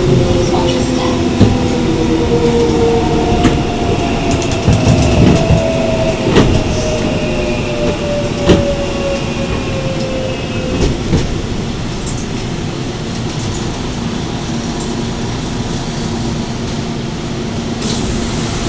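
Korail 3000-series electric subway train braking into a station, heard from inside the car: the traction motor whine falls steadily in pitch over about ten seconds, with sharp wheel clacks over rail joints. After that it runs slower and more quietly.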